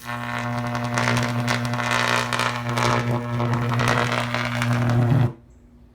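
High-voltage arc from a microwave oven transformer, buzzing loudly and steadily with a deep mains hum under a dense crackle, then cutting off sharply about five seconds in. The transformer is stepping mains current up to very high voltage to throw the spark.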